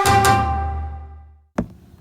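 Background music: a held chord fading away, then a single sharp knock about a second and a half in.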